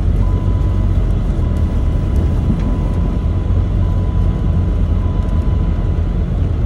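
Steady low rumble of road and engine noise inside a moving car, with a thin steady whine that begins just after the start.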